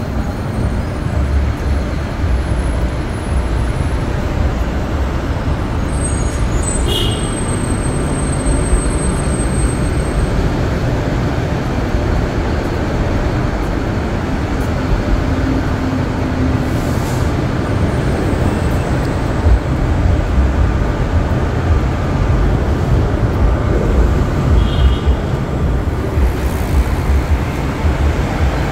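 Steady noise of heavy road traffic. A brief high squeak is heard about seven seconds in and again near the end.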